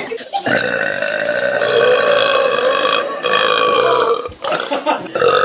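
A young woman's long, loud belch, held for about four seconds on a steady pitch, with a second belch starting near the end.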